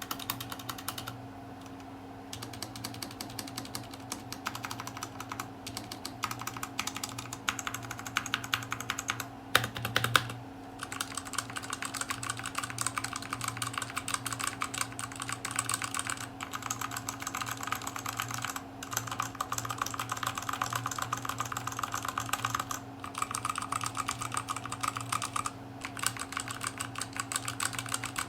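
Fast, continuous typing on a Redragon K530 mechanical keyboard with tactile brown switches, a dense run of key clacks broken by a few short pauses, with a few louder strokes about ten seconds in. A steady low hum sits underneath.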